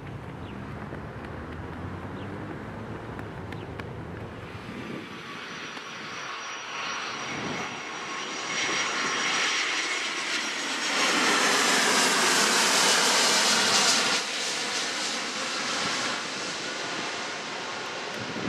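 Low, distant rumble of a twin-engine jet airliner on its takeoff climb. Then an American Airlines Boeing 757 passes low overhead on approach with a high engine whine and a swelling rush of jet noise. The noise is loudest for a few seconds past the middle, drops away abruptly, then fades with a falling pitch.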